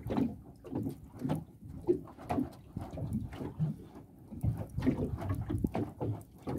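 A plastic lid fanned over a charcoal grill, giving irregular whooshing strokes of air about twice a second, to work up poorly burning charcoal.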